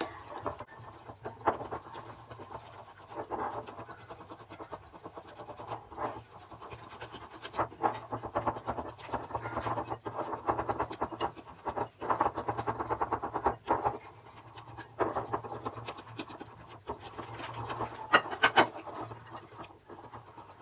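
Hand whisk beating egg yolks and sugar in a ceramic bowl, a rapid scraping and clicking against the bowl that comes in bursts with short pauses; the yolks are being beaten until the sugar dissolves.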